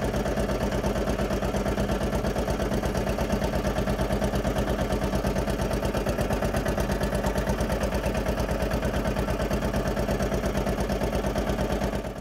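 Small petrol engine of a motorised cricket roller running steadily with an even, rapid pulse as the roller rolls over the wicket.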